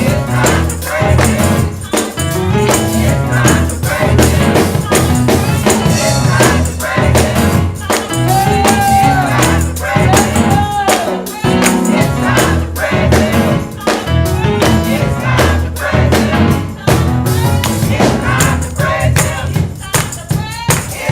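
Live gospel praise-and-worship music with a steady beat: bass, percussion and tambourine, with voices singing over it.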